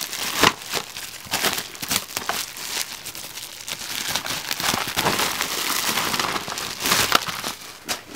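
Packaging wrap being unwrapped by hand, crinkling continuously with many small crackles.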